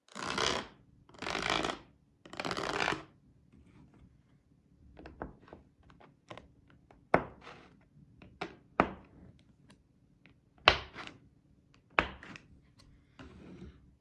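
A plastic card scraping through a sheet of small magnetic balls three times, then sharp clicks and clacks as the balls snap and knock together while the hexagon pieces are split and moved apart.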